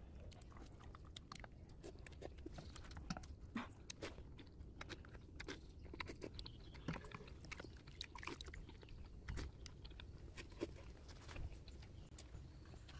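Faint chewing of a mouthful of instant noodles, with many small clicks at irregular intervals.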